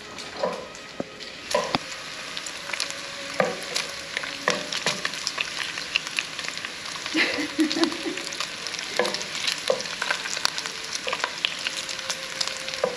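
Thick-sliced bacon frying in hot bacon grease in a nonstick pan: a steady sizzle with frequent sharp pops and spits of grease, as a wooden spatula stirs and turns the pieces.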